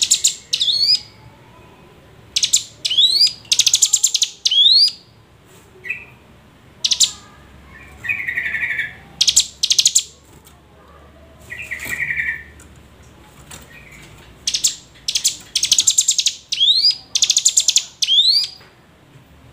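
Ciblek gunung, a prinia, singing loudly in repeated short bursts. Each burst is a rapid, very high buzzing rattle ending in quick rising whistles, and a few lower chattering trills come between the bursts.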